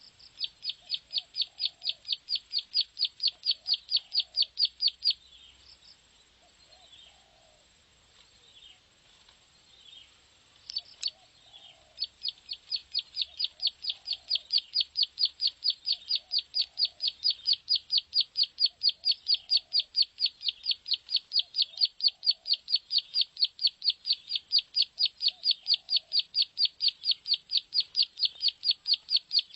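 Plain prinia (prenjak sawah) song: a fast run of sharp, high notes at about six a second. It stops about five seconds in, leaving a few scattered notes, and picks up again at about twelve seconds and runs on. Faint short low calls repeat every second or two beneath it.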